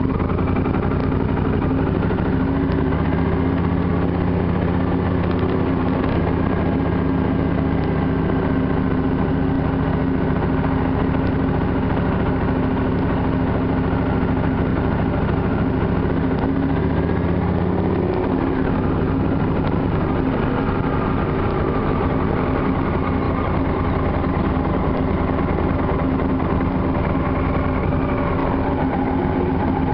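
Triumph Thunderbird motorcycle engine running as the bike rides slowly through town traffic, heard from on the bike. Its pitch shifts about eighteen seconds in as the speed changes.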